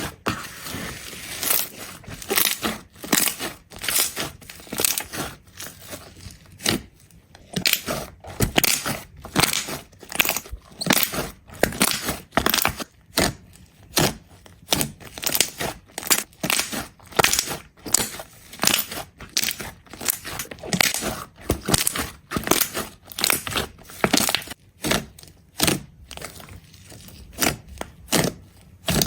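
Slime being pressed and squished by hand, giving a steady run of sharp clicking pops, about two a second.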